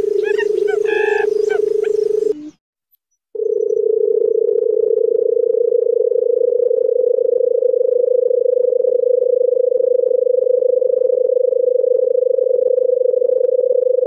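Barred buttonquail calling: a steady low-pitched sound that runs on without a break. Higher chirps of other small birds sound over it at first. The sound cuts out for under a second near the start, then resumes unchanged.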